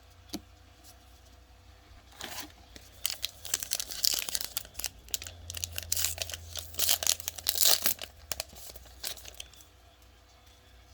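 A trading card pack's wrapper being torn open and crinkled by hand, in a run of irregular tearing and crackling from about two seconds in to about nine seconds in.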